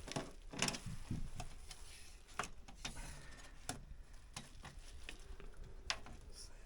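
Scattered light clicks and knocks, a handful spread irregularly over several seconds, over a faint low hum: tools and parts being handled during electrical work.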